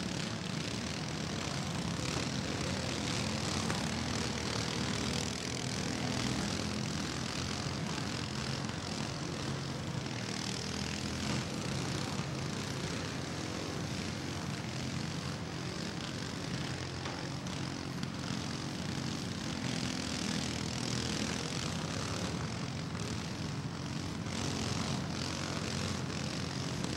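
Riding lawn mower engines running together in a steady, continuous drone as the mowers drive around the muddy arena.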